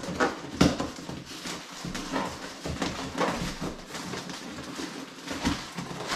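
Styrofoam packing insert squeaking and scraping against cardboard as hands tug and work it, trying to free a tight-fitting foam block from a dumbbell box, with scattered knocks and rustles.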